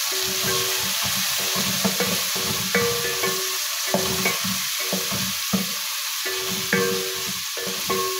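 Sliced onions sizzling as they fry in hot ghee in an aluminium pot, stirred with a wooden spoon that scrapes and knocks against the pot several times.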